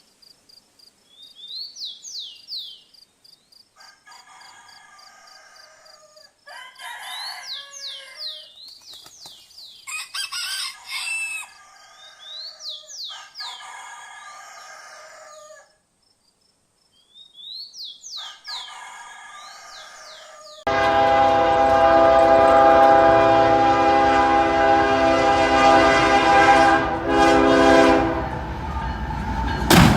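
Chickens clucking and chirping in bursts, broken by short pauses. About two thirds of the way through they cut off abruptly, and a loud train horn sounds as a steady chord of several tones for several seconds, with the train carrying on near the end.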